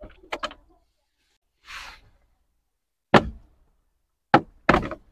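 Hard plastic trim panel under a Maruti Suzuki Ertiga's steering column being pulled loose by hand. A few light clicks at the start and a short hiss near the middle are followed by three sharp plastic knocks in the last two seconds.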